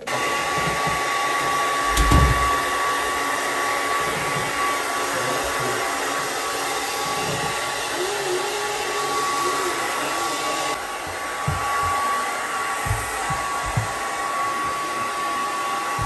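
Hair dryer switched on and running steadily, a rushing blow with a constant high whine, used on a wet dog straight after its bath. A few dull bumps of handling come through underneath.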